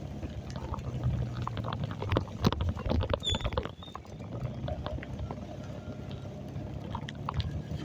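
Motorcycle engine running steadily while riding, with scattered clicks and knocks over road noise. A brief high squeak about three seconds in.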